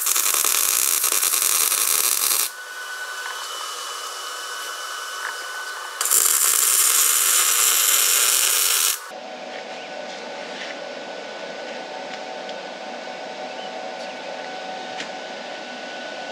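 Welding arc crackling and hissing as beads are laid on a cast-steel Dana 60 axle housing: one bead stops about two and a half seconds in and a second runs for about three seconds from near the six-second mark. Between and after the beads a quieter steady hum.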